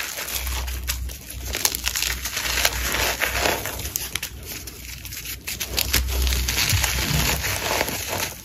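Gym chalk crushed and crumbled in the hands: a dense, crunchy crackling as powdery chunks are squeezed and a chalk block is rubbed and broken apart.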